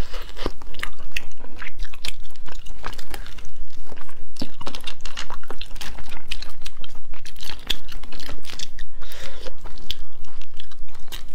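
Close-miked crunching and chewing of cooked crustaceans: shells cracking and being pulled apart by hand and bitten, in a dense, continuous run of sharp crackles and clicks.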